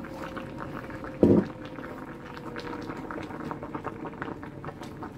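Salted water at a rolling boil in a stainless steel pot of breadfruit slices, a steady bubbling, with one short dull thump about a second in.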